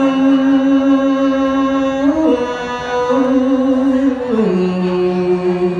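A man singing Khmer Smot, Buddhist chanted poetry, solo and unaccompanied. He holds long ornamented notes, rises briefly about two seconds in and steps down to a lower held note about four seconds in.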